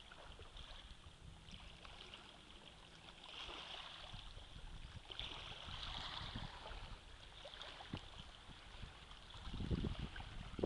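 Faint lapping and trickling of tidal water over shingle at the water's edge, with wind buffeting the microphone in the last second or so.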